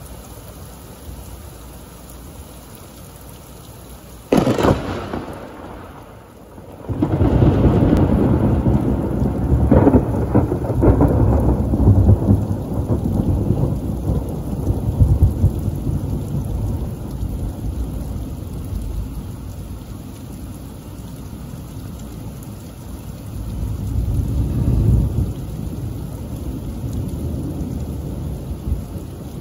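Thunderstorm with steady rain falling; about four seconds in a close lightning strike gives a sudden sharp crack of thunder, followed a few seconds later by a heavy low rumble that rolls on with several peaks and slowly fades, swelling once more near the end.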